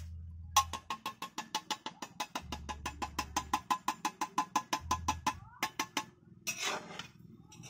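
Metal spoon rapidly knocking against the inside of a tin can while scooping out its contents, about nine ringing taps a second for around five seconds. A short rustle follows near the end.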